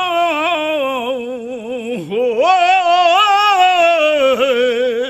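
A man sings a Punjabi poem, drawing out long held notes with quick wavering ornaments. The note dips and breaks briefly about two seconds in, then rises and is held again.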